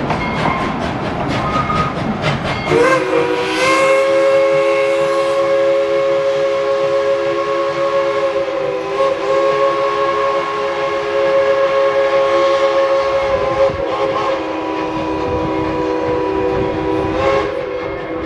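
Steam locomotive whistle sounding one long blast of about fifteen seconds, several tones at once, starting about three seconds in after a stretch of rushing train noise.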